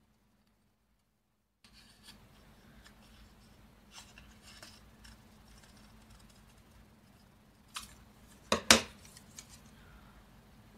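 Scissors cutting paper: a few faint snips and rustles, then two sharp, loud snips close together about eight and a half seconds in.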